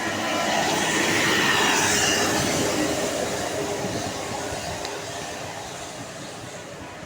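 A large bus passing close by: its noise swells to a peak about a second and a half in, drops in pitch as it goes past, then fades away.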